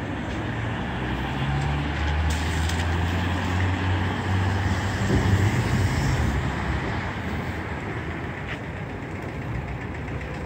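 Street traffic noise, with a motor vehicle's engine drone building about a second in, loudest around the middle, then fading away.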